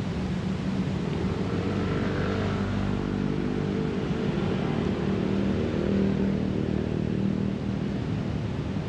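City road traffic: a vehicle engine's hum swells and fades as it passes, over a steady wash of traffic noise.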